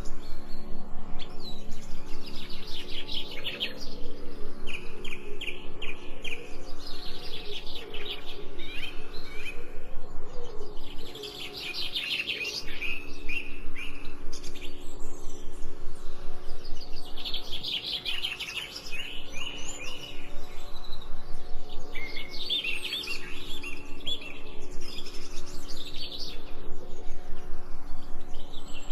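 Birds chirping, clusters of quick high notes repeated many times a second, coming and going every few seconds over a steady low hum.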